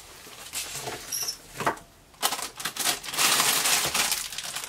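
Plastic bags and paper rustling and crinkling as they are handled, with scattered scratches in the first half and a denser, louder crinkle in the second half.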